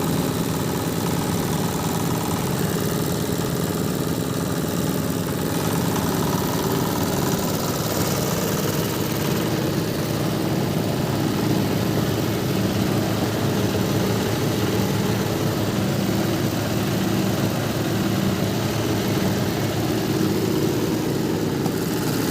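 A hammer-mill grinding machine for rice husk and bran running steadily.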